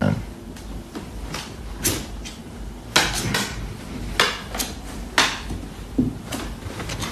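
A puppy scrambling and hauling a large plush toy against a wooden chair and floor: about ten irregular sharp knocks and taps over several seconds, the loudest a little past the middle.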